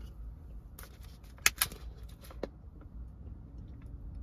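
Sharp clicks and crinkles of a thin plastic water bottle being handled and its screw cap twisted off, the loudest pair about a second and a half in.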